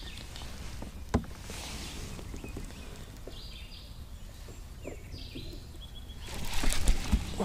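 Birds chirping now and then over a low steady outdoor rumble, with a sharp click about a second in. Near the end comes a brief, louder rush of noise with a few thumps.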